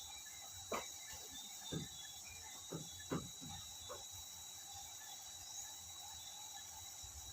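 Steady high-pitched insect drone, with about six short, sharp sounds in the first four seconds.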